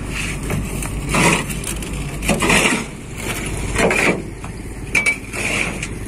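A heavy diesel engine running low and steady, with several short crunching, scraping bursts over it.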